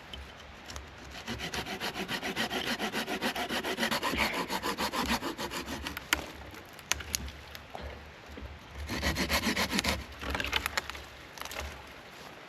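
Hand saw cutting through a dry dead log in quick, even back-and-forth strokes: a run of about five seconds, a few sharp clicks, then two shorter runs of strokes.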